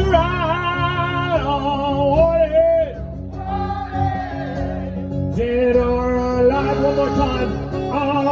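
Live saxophone solo over strummed acoustic guitar: long held notes that bend and slide, with short breaks between phrases.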